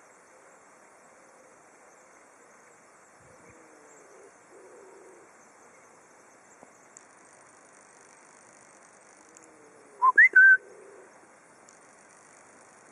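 A short, loud whistle of three quick notes about ten seconds in, the first sliding up in pitch, over a faint steady outdoor background.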